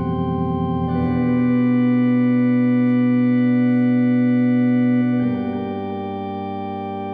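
Farfisa Compact Duo combo organ playing long held chords, fed through a Catalinbread Echorec echo pedal and a Leslie speaker. The chord changes about a second in and again a little after five seconds in, going quieter after the second change.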